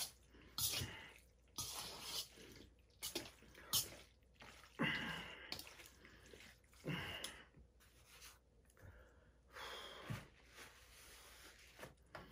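Eating from a stainless steel bowl of pasta: a fork scraping and clinking against the bowl, with chewing and breaths, in short irregular bursts.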